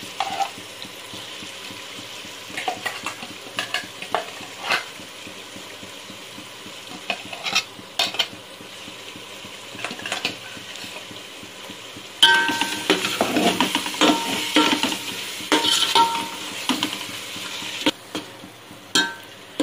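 Onion paste frying in oil in a metal pot: a steady sizzle with scattered crackles. About twelve seconds in, a metal spoon starts stirring, scraping and clanking against the pot.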